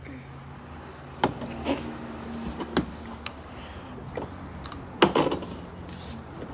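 Small metal tin's lid clicking and knocking as it is twisted and pried at, a hard-to-open lid. There is a string of sharp knocks, the loudest about five seconds in.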